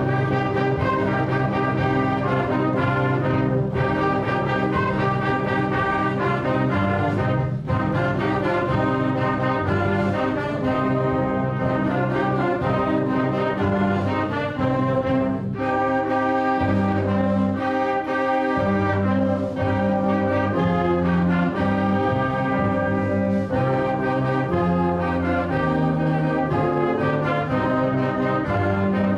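Student band music led by brass, playing a Christmas song in full, held chords.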